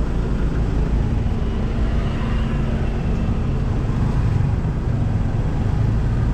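Steady low rumble of passing road traffic, continuous with no sharp events.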